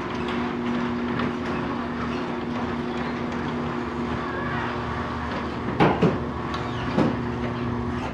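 Electric garage door opener raising the door: a steady motor hum with the rattle of the door travelling along its tracks, a few sharp knocks about two-thirds of the way through, and the hum cutting off suddenly as the door stops at the top.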